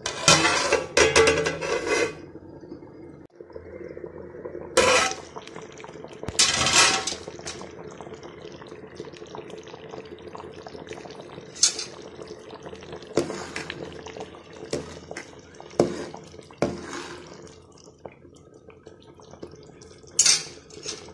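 Thick coconut fish gravy boiling hard in a steel pot: bubbles burst in irregular pops and splutters, a dense cluster in the first two seconds, then single ones every second or few. A steady low hum runs underneath.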